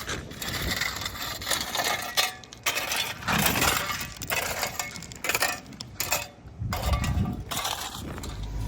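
Gravel river rock clinking and scraping in irregular bursts as the stones are worked into place.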